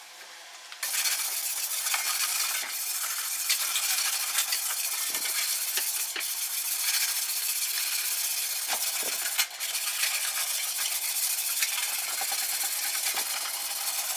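A hand-held sanding block scrubbed back and forth over the bare steel of a Triumph Spitfire front valance: a steady, rasping hiss that starts about a second in, with a few light clicks.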